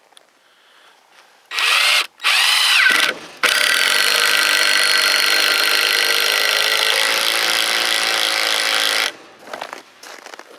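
Ryobi 18-volt cordless drill driving a 4½-inch star-drive wood screw into a treated 4x4 without a pilot hole. Two short bursts come first, the second winding down in pitch. Then the motor runs steadily for about five seconds, dipping slightly in pitch as the screw sinks in under load, and it stops abruptly as the head seats.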